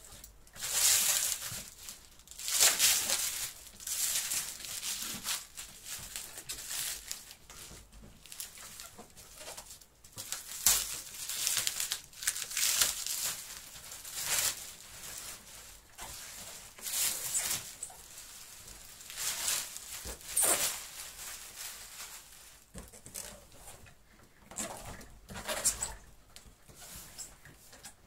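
Black plastic packaging rustling and crinkling in irregular bursts as it is cut with scissors and pulled off a cardboard box.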